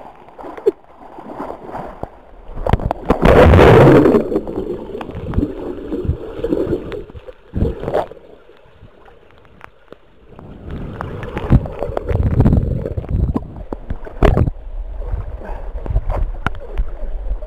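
Pool water splashing and gurgling around a swimmer and a camera that dips in and out of the water. The loudest splash comes about three seconds in, there is a muffled, quieter stretch underwater in the middle, and choppy splashes follow near the end.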